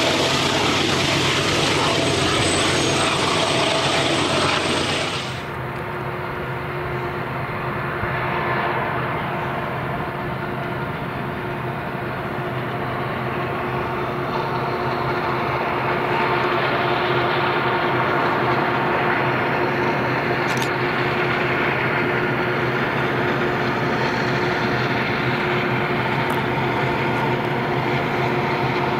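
Diesel locomotives of an approaching freight train working hard uphill, heard from a distance as a steady engine drone with a held hum that slowly grows louder. It is preceded by a few seconds of loud rushing noise that cuts off abruptly about five seconds in.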